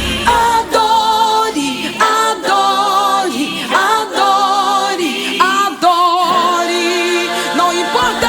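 Gospel worship song with the band dropped out: layered voices sing on their own with wide vibrato and sliding notes, almost a cappella. The bass and drums come back in right at the end.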